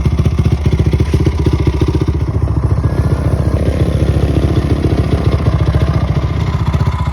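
Dirt bike engine running steadily, with a rapid, even firing beat.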